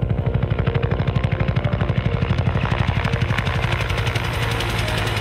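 Bell UH-1 Huey helicopter in flight, its two-bladed main rotor beating at a rapid, even pace of about ten beats a second over a steady engine drone. About four seconds in, the beat grows less distinct.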